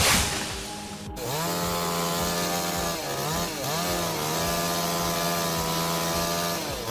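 Two-stroke chainsaw running at high revs in a cut, its pitch dipping briefly a few times as the chain loads up in the wood. It starts about a second in, after a short rushing noise that cuts off abruptly.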